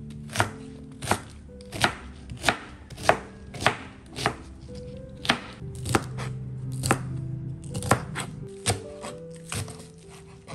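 Knife chopping vegetables on a plastic cutting board: sharp chops about one every two-thirds of a second, then quicker, lighter cuts, over soft background music.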